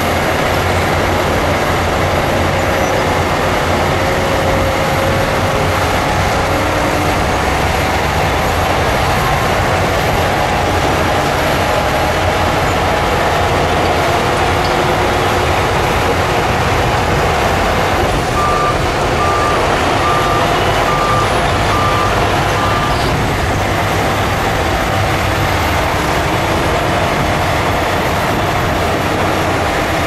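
Heavy earthmoving machines' diesel engines running steadily. A little past halfway, a reversing alarm beeps about seven times, roughly one beep every 0.7 seconds, as a machine backs up.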